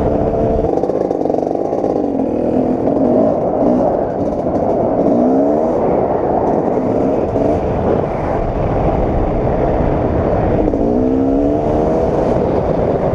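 An old Kawasaki KX250 two-stroke dirt bike engine, heard from the rider's helmet, pulling along a trail. Its pitch climbs as it revs up twice, around five seconds in and again near the end.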